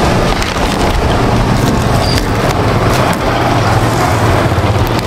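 A motor vehicle's engine running steadily, with a constant low hum under an even rumble and no distinct events.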